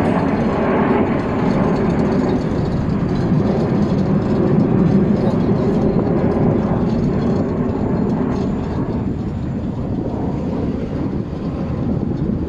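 Jet engines of an aerobatic formation team flying past: a steady roar that swells a few seconds in and eases toward the end.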